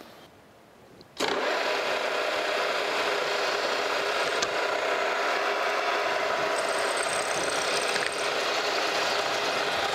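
Radial drill running, a 1/4-inch twist drill bit cutting into a metal plate held in a machine vise. The machine's steady running and cutting noise starts abruptly about a second in and holds even, with a faint high whine for a moment past the middle.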